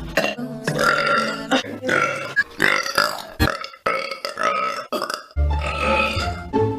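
A young woman burping, a string of burps in quick succession, each about a second long.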